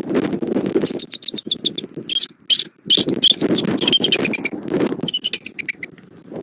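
Bald eagle calling in rapid series of short, high chittering notes, several bouts, over the low rumble of strong wind buffeting the microphone.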